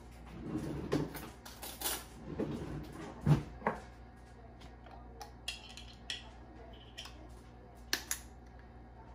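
Kitchen counter handling sounds: several knocks and clicks of things being set down, then the lid of a glass jar being unscrewed and put down. Near the end a metal spoon clinks twice against the glass jar as it scoops out aioli.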